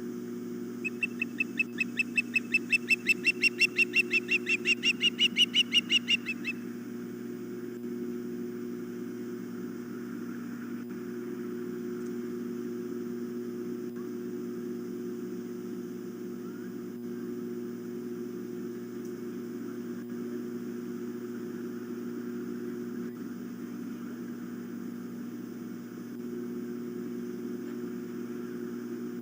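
Osprey giving a rapid series of high, whistled chirps, about five a second, rising slightly in pitch before stopping abruptly; a steady low hum continues afterward.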